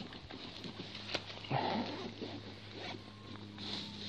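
Rustling and scraping of handling: a hand and jacket sleeve brushing over rough shore rock beside a landed fish, with a few small clicks and a louder scrape about a second and a half in, over a faint steady low hum.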